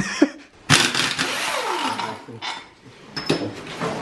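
A small motor whirring, then winding down in pitch about halfway through. A sharp click comes at the start and another near the end.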